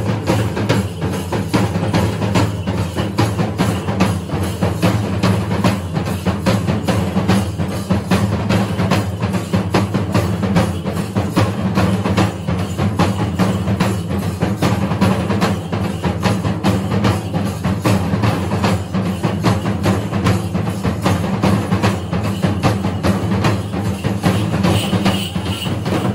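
Kerala festival drumming, a chenda ensemble playing fast, dense, unbroken strokes that accompany a thira ritual dance.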